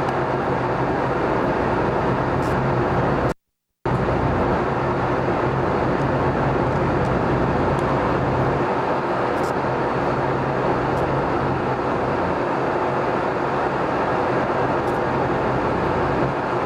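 Steady drone of a ferry's engine with a rushing noise, heard from on board. The sound cuts out completely for about half a second some three seconds in.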